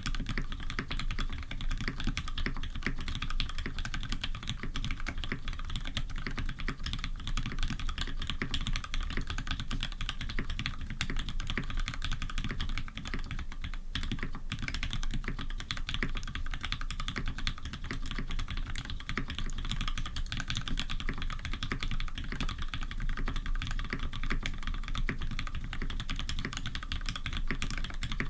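Continuous typing on a custom mechanical keyboard with lubed Cherry Retooled Black linear switches in a brass plate and GMK keycaps: a dense, irregular run of key clicks and clacks, with a brief pause about halfway through.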